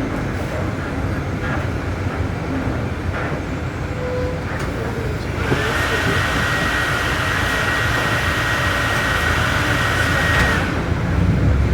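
Volksbus 17.230 OD bus running, its MAN D0834 diesel giving a steady low rumble. About five and a half seconds in, a steady high whine joins for about five seconds and then stops: the differential howling.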